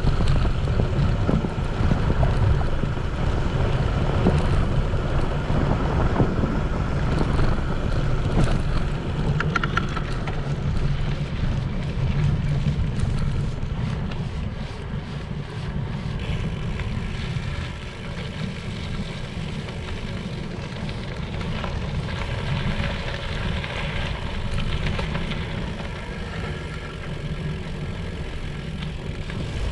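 Wind buffeting the microphone of a GoPro HERO7 action camera on a moving bicycle, over a steady rumble from the ride; it gets somewhat quieter from about halfway through.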